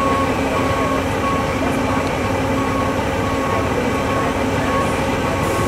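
Heavy diesel engine of a mobile crane running steadily under load, with a short high beep repeating roughly every half second.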